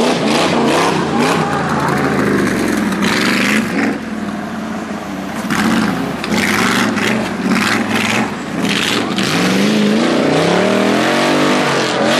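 Off-road race buggy's engine revving hard, its pitch rising and falling again and again as it works through deep mud, climbing steeply in the last few seconds.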